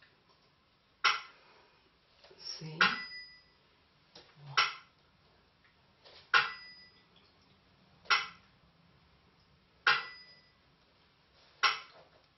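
Burmese si and wa keeping the dance beat: a ringing stroke of the small si hand cymbals alternates with a dry clack of the wa clapper, one stroke about every second and three quarters.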